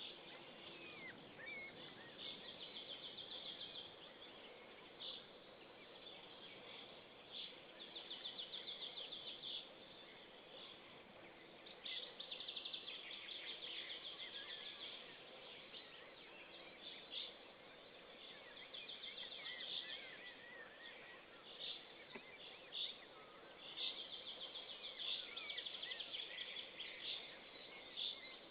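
Outdoor birdsong: repeated short high trills and thin chirps, coming every few seconds over a steady background hiss.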